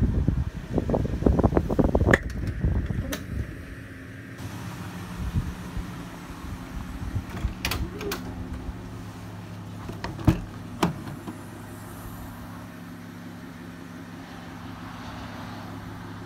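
Low thumping handling noise on a phone microphone for the first two seconds. Then a steady low hum with a few sharp clicks, the loudest about ten seconds in, as the minivan's rear liftgate is unlatched and opened.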